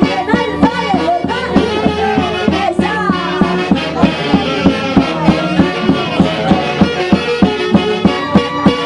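Live band playing Andean folk music with a steady beat, its melody sliding up and down over the rhythm.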